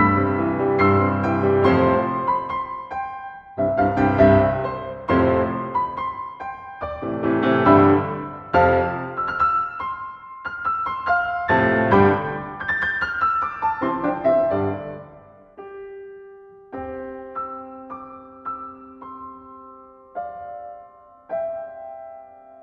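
Background piano music. Full, busy chords give way about two-thirds of the way through to a few soft, sustained single notes.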